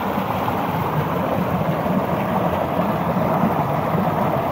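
Mountain stream rushing and splashing over boulders close by, a steady, loud wash of water.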